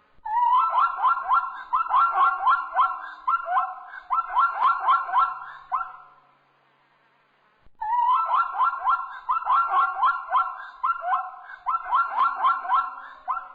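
Zebra calling: a quick series of barking calls, about three a second, in two bouts of about five seconds each with a short pause between.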